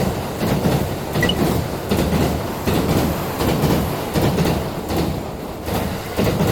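A steady, rhythmic low clatter pulsing about three times every two seconds, typical of rail-wagon wheels running over track joints.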